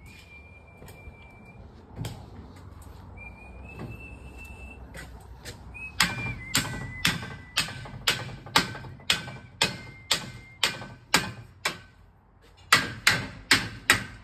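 Hammer driving nails into timber formwork beams, each blow sharp with a short metallic ring. A steady run of about two blows a second starts about six seconds in, pauses briefly, then resumes faster near the end.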